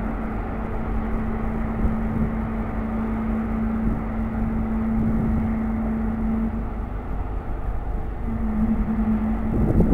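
Cargo ship's Cummins V12 four-stroke diesel engine running under way, a steady drone with a constant hum that drops away about six seconds in and comes back near the end.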